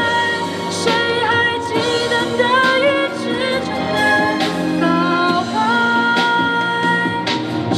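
A woman singing live into a handheld microphone over instrumental accompaniment with a beat, her voice holding long notes with vibrato.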